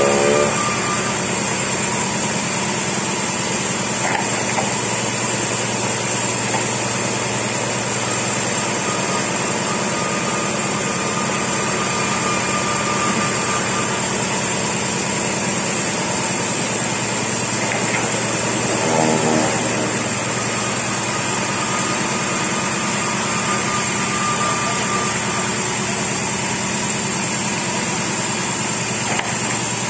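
Chainsaw engine running at a steady speed, with a steady high hiss above it.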